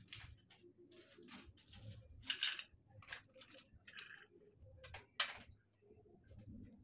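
Rustling and light clicks of small puja items being handled, including a clear plastic packet crinkling, with a sharper click about five seconds in.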